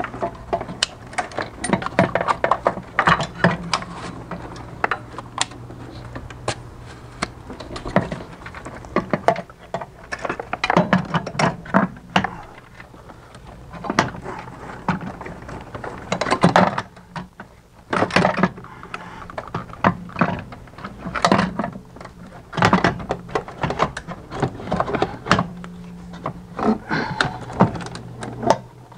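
Irregular knocks, clicks and clunks from a BMW E46 DSC hydraulic unit and its mounting bracket being handled and fitted into place in the engine bay, over a steady low hum.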